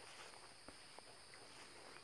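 Near silence in the woods: a faint, steady, high-pitched insect drone, with two soft ticks of footsteps.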